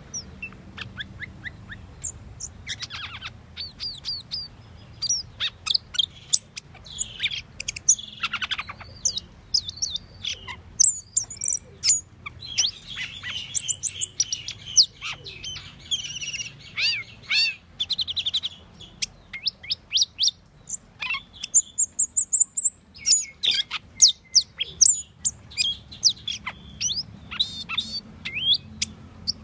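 Asian glossy starling (Aplonis panayensis) singing a varied run of sharp chirps, clicks and whistled notes, with a fast rattling trill in the middle and a few very high thin notes later on.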